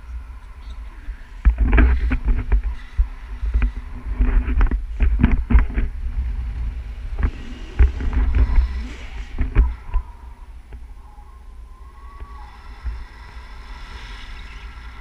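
Wind buffeting the microphone of a camera on a tandem paraglider in a steep banking turn. From about one and a half seconds in it is a loud, gusty low rumble with rapid irregular flaps, and around ten seconds in it eases to a lighter steady rush.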